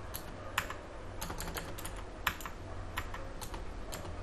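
Computer keyboard keystrokes: scattered single key clicks at irregular intervals, over a steady low hum.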